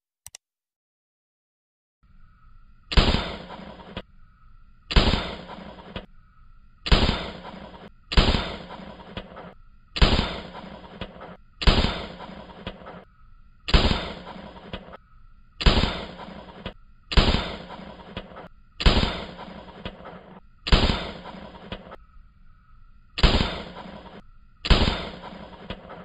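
A rapid series of about thirteen rifle shots, each a sharp crack that dies away within a second, coming one every one and a half to two seconds.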